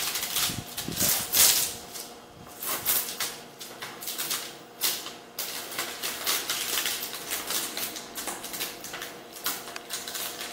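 Thin plastic mirrored window film crinkling and rustling as it is handled and pulled at the edge of a glass table top, in irregular crackles.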